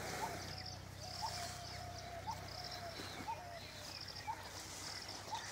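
Birds calling: a short rising note repeated about once a second, with higher trilled calls between them, over a faint steady low hum.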